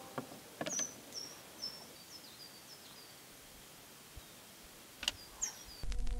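Clicks and knocks of a portable suitcase record player being handled as a vinyl record goes onto the platter and the tonearm is moved, with a bird chirping a run of short falling notes. Near the end the stylus goes down and a low hum with surface noise comes in suddenly.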